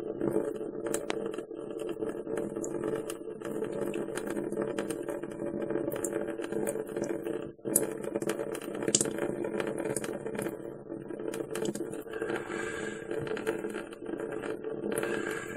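Saline sinus rinse draining from a nostril into a sink, a thin trickle with scattered small drips and splashes. A steady low hum runs underneath.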